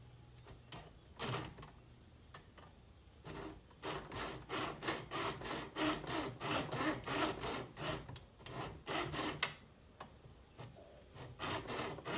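Hacksaw cutting through a plastic RC roll cage bar in quick back-and-forth strokes, about three a second. The strokes start a few seconds in, stop briefly and resume near the end.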